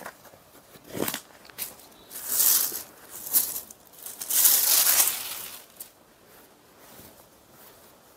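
Silk saree rustling as it is unfolded and spread out by hand, in several swishes over the first five seconds or so, then only faint handling.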